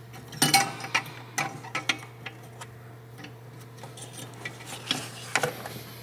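Irregular light clicks and rattles of a 9003 halogen headlight bulb's metal base and its wire retaining hoop against the plastic headlight housing as the bulb is wiggled out. A cluster of clicks comes in the first two seconds and a few more near the end.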